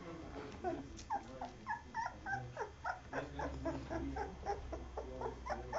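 Two-week-old Old English Sheepdog puppies squeaking and whimpering in quick short cries, several a second, as they jostle to nurse from their mother. A low steady hum joins about three seconds in.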